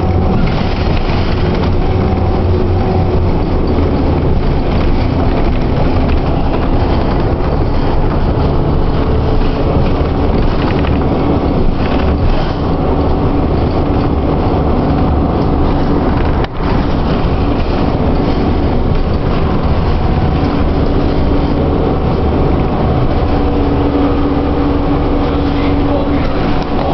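City bus running, heard from inside: a steady drone of engine and road noise, with a low humming tone that shifts in pitch as the bus changes speed.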